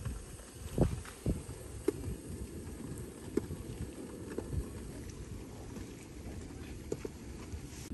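Strong wind buffeting the microphone, a steady low rumble, with a few light knocks and taps scattered through.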